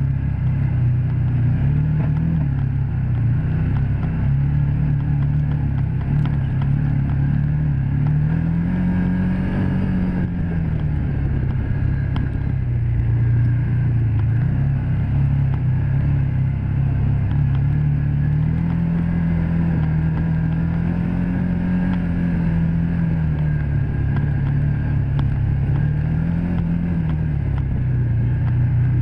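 Can-Am Commander 1000 side-by-side's V-twin engine running under way, heard from the driver's seat. Its pitch rises and falls as the throttle changes, highest around a third of the way in and again past the middle.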